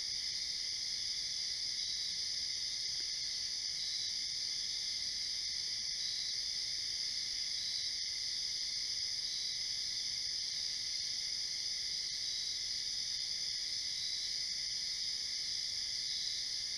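Steady night chorus of crickets and other insects, a continuous high-pitched trilling, with one faint call pulsing at a regular beat through it.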